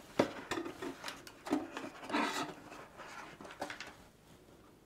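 Cardboard packaging being handled as the light is lifted out of its box: a run of short scrapes, rubs and light taps of card against card, some with a brief squeak, thinning out after about four seconds.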